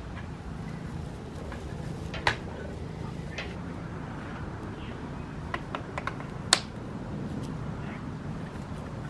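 Domestic tabby cat purring in a steady low rumble while being petted. Sharp clicks break in: one a couple of seconds in, then a quick run of them a little past the middle, the last the loudest.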